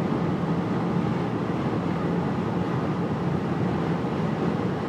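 A huge flock of migrating sandhill cranes and geese calling all at once, blended into one steady, dense din without separate calls standing out.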